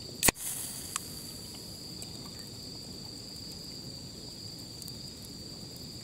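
A can of sour being cracked open: one sharp pop about a third of a second in, then a short fizz, and a small click a moment later. Crickets trill steadily throughout, a high two-pitched chirring.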